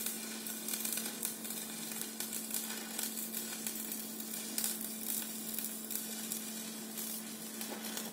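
Electric arc welding: a steady sizzling crackle with a low steady hum beneath it.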